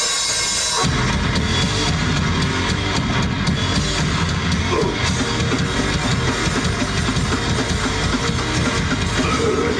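Live heavy rock band playing: distorted electric guitar, bass and fast drumming, with the full band coming in about a second in.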